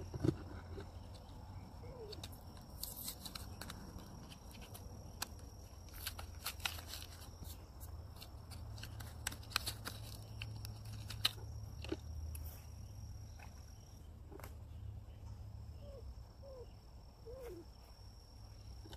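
Fishing reel clicking irregularly as it is worked, over a steady high-pitched insect drone and a low wind rumble on the microphone.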